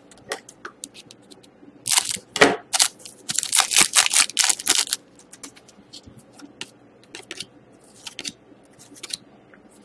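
A foil trading-card pack being torn open and its cards handled: crinkling and rustling bursts about two seconds in and again for a second and a half around the middle, then light clicks and sliding of cards.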